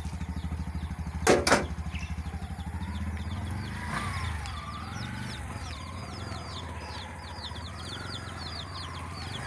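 Bajaj three-wheeler's engine idling with an even putter that smooths out after about three seconds, with two sharp knocks about a second and a half in. Small birds chirp rapidly and repeatedly in the background through the second half.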